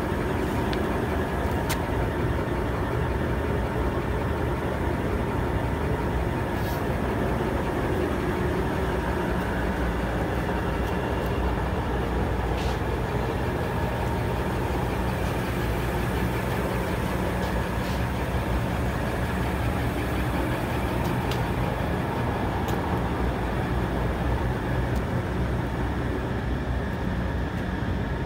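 Steady hum of running heavy machinery, with steady low tones and a few faint clicks over it.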